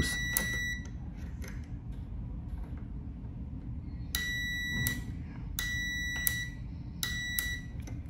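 Digital multimeter's continuity buzzer beeping with a steady high tone each time the limit switch's normally open contact closes as its roller arm is pressed. Each beep begins and ends with a click. The first beep stops about a second in, and three more short beeps follow in the second half.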